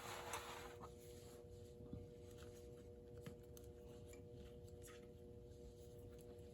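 Near silence: room tone with a faint steady hum and a few soft, light clicks.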